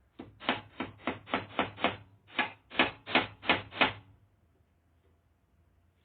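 Hammer driving a nail: about a dozen quick, sharp strikes, roughly three a second, with a brief pause partway through, stopping about four seconds in.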